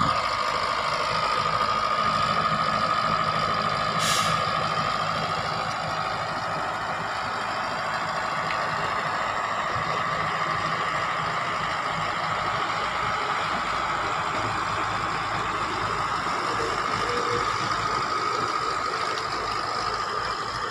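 Heavy earth-moving machinery, a loaded dump truck and a crawler bulldozer, running steadily: a loud engine drone with a constant high-pitched whine over it. A single sharp click about four seconds in.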